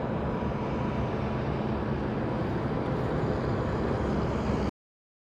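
Steady, low, rumbling outdoor background noise that cuts off abruptly to silence about four and a half seconds in.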